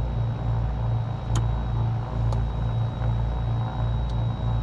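Cessna 310's twin piston engines idling with the aircraft stopped on the ramp, heard from inside the cabin as a low steady drone that throbs a few times a second.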